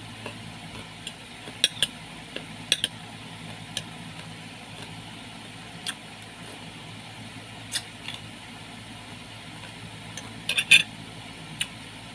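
Eating fruit with a metal spoon: scattered sharp clicks of the spoon against the dish and mouth, with chewing, the loudest cluster near the end, over a steady low hum.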